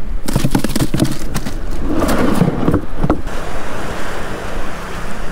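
Clattering and knocking as a plastic cooler lid is opened and handled for about the first three seconds, then steady surf and wind noise on the microphone.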